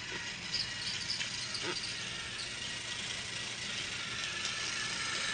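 Battery-powered toy train running on plastic track: a steady rattle with a faint high whine and a few small clicks.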